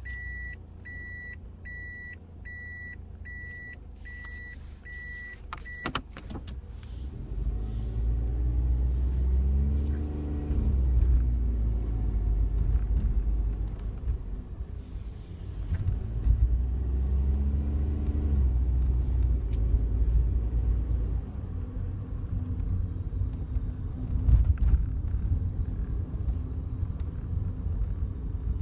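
Inside a Daihatsu Wake kei car: a repeating electronic warning beep sounds about eight times, then stops with a click about six seconds in. The car's small three-cylinder engine and the road rumble then rise and fall twice as it pulls away and gathers speed, with scattered faint clicks from the cabin.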